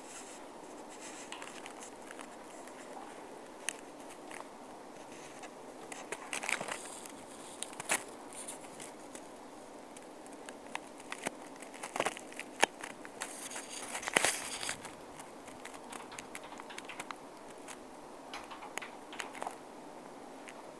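Scattered rustles, crinkles and sharp clicks of something being handled, over a faint steady room hiss, busiest about twelve to fifteen seconds in.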